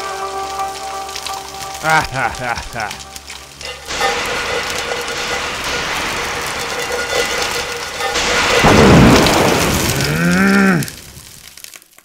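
Music plays, then a wok sizzles over high flame from about four seconds in. Near the end it swells into a louder rush with a tone that rises and falls, then cuts off suddenly.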